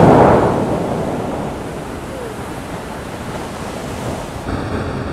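Bellagio fountain water crashing back down into the lake after a burst of jets: a loud rushing wash at the start that fades over about two seconds into a steady hiss of falling spray.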